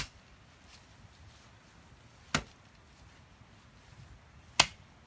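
Three short, sharp knocks, about two and a quarter seconds apart, against a quiet background.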